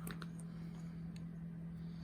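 A few light clicks and taps of small metal lock parts being handled while picking out a pin-tumbler follower: three or four close together at the start, then one more about a second later, over a steady low hum.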